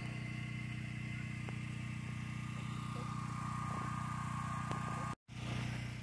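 Portable generator engine running steadily, an even mechanical hum, breaking off for an instant about five seconds in.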